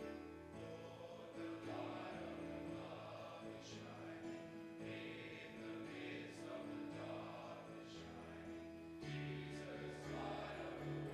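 Many voices singing a hymn together, with steady instrumental accompaniment.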